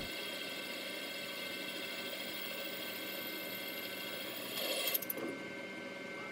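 CNC lathe turning a cast aluminium turbo compressor housing, a boring bar cutting into its inlet: a steady machine whine made of many fixed tones. A little before five seconds in it briefly gets louder and rougher, and a very high whine falls in pitch and fades.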